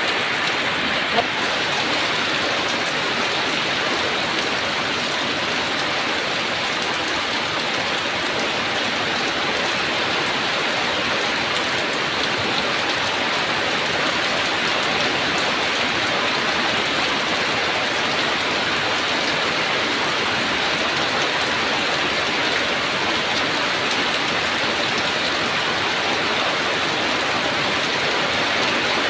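Heavy rain falling steadily, a dense even hiss, with one sharper tick about a second in.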